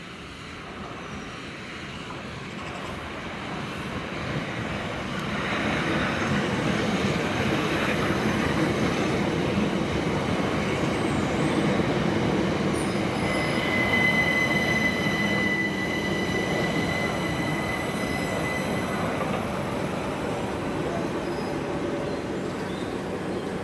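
Southern Class 377 Electrostar electric multiple unit approaching and running past along the platform, its rumble growing louder over the first few seconds and then holding steady. For a few seconds around the middle a high, steady wheel squeal rides over the rumble.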